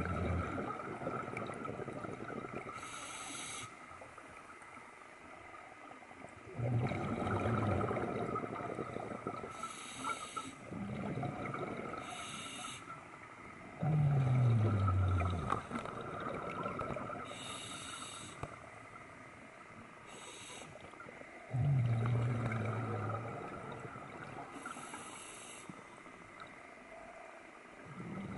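A scuba diver's regulator breathing cycle heard underwater: four exhalations about seven seconds apart, each a rush of bubbles that opens with a low tone falling in pitch, and brief hissing inhalations between them.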